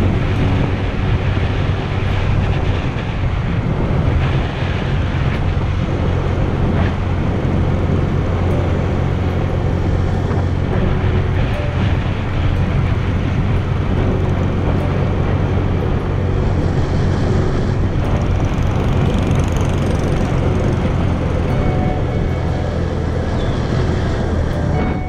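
Motorbike engine running steadily at road speed, its low hum under a continuous rush of wind on the microphone.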